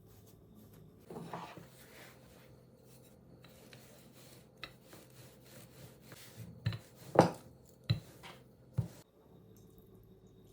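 Handling sounds: a short rustle about a second in, then five sharp knocks spread over the second half, the loudest a little past seven seconds in.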